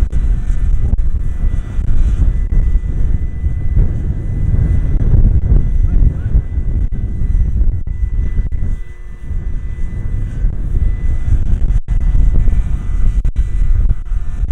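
Electric scale model helicopter (Vario Dauphine AS 365) flying low: a dense, gusty low rumble of rotor and air with a steady high whine over it, easing briefly about nine seconds in.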